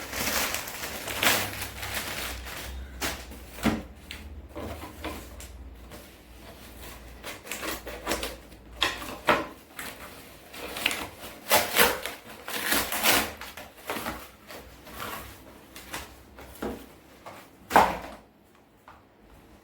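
Hands opening and handling a product's packaging: irregular rustles, scrapes and knocks, with one sharp knock near the end.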